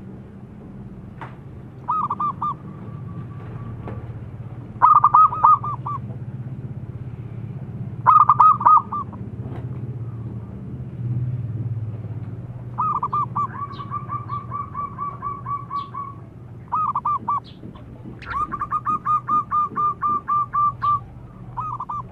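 Zebra dove cooing: seven phrases of quick, clipped notes, most about a second long, two drawn out into runs of evenly repeated notes lasting about three seconds.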